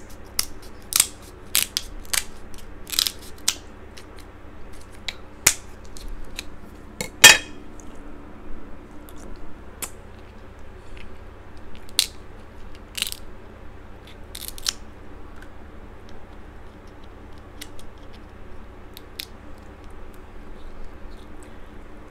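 Kitchen scissors snipping through a crab leg shell: a run of sharp snips and cracks, the loudest about seven seconds in, then a few scattered cracks as the shell is pulled apart by hand. After that only a steady low hum remains.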